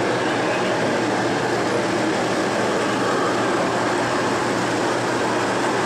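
Steady background chatter of an exhibition crowd, many voices blending into a constant murmur.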